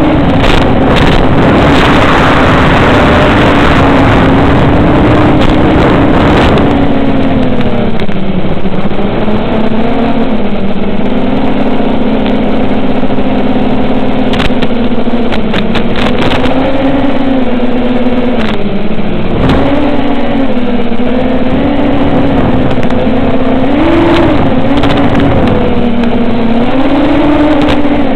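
Onboard sound of a 7-inch FPV quadcopter's 2508 1750 kV brushless motors and propellers: a steady buzzing whine whose pitch dips and rises with the throttle, with extra rushing air noise in the first few seconds.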